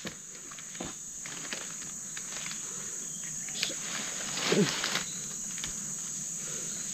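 Forest insects droning in a steady high-pitched chorus, with a few faint knocks and a short low voice-like sound about four and a half seconds in.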